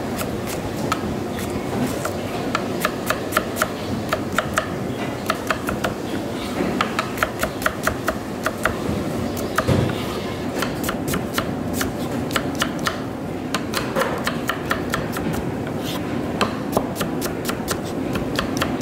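Chef's knife rapidly chopping onion on a plastic cutting board: a fast run of sharp knife taps, several a second, over a steady background noise.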